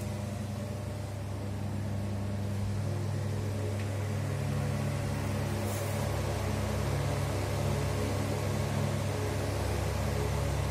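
Homemade exhaust fan, a washing-machine motor turning a fan blade, running steadily: a low electric motor hum with a rush of moving air.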